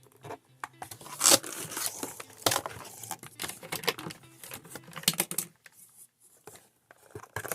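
Handling noise: a busy run of clicks, rattles and crinkling rustles as things are moved and handled, thinning out to a few scattered clicks in the last couple of seconds.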